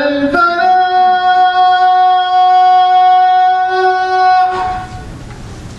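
A man's voice chanting the Islamic call to prayer (adhan): a short lower note, then one long held note that ends about five seconds in.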